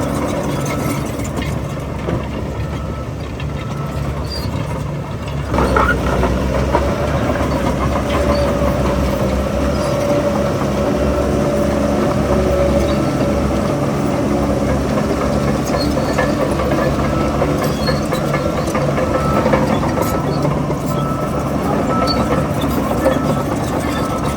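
Heavy diesel engine of earthmoving machinery running steadily, growing louder suddenly about five and a half seconds in as it takes on more load.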